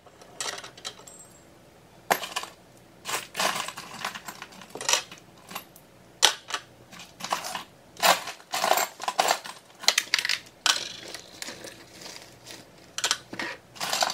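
Metal jewelry clinking and jangling as pieces are picked up and set into a clear acrylic drawer organizer, in irregular clusters of small clicks and rattles.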